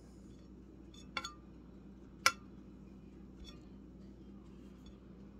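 Table knife clinking against a ceramic plate while mustard is spread on bread: a quick double clink about a second in, then a single sharper clink a second later, with faint ticks after.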